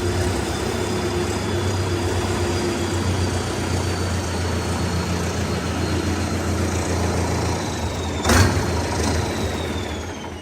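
A vehicle engine idling steadily, with a faint whine that slowly falls in pitch. A sharp knock comes about eight seconds in, and the engine sound fades out near the end.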